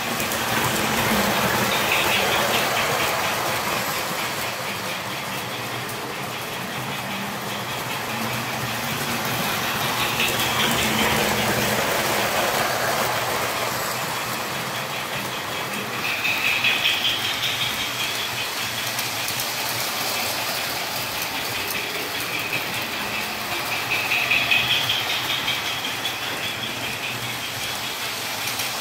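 O-scale three-rail toy trains running: a steady rumble of wheels rattling over the track and motors running, swelling louder several times as cars pass close by.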